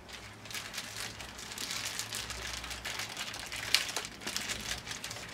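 Plastic toy packaging crinkling and rustling as it is handled: a run of quick crackles, with a sharper snap just before four seconds in.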